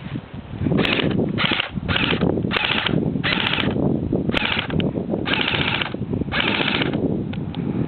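Airsoft gun firing about eight short bursts of rapid, full-auto fire, the last two bursts longer, with rustling underneath.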